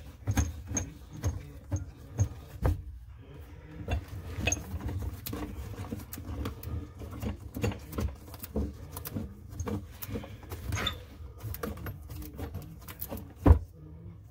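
Hands and tools knocking and clicking on under-sink plumbing: a quick, irregular run of small knocks, with one loud knock near the end.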